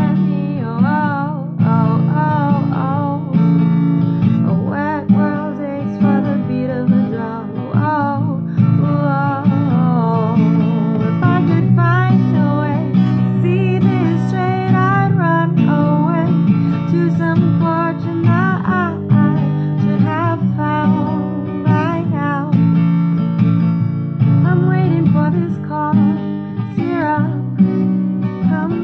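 A song performed on a strummed acoustic string instrument, with a voice singing the melody over it.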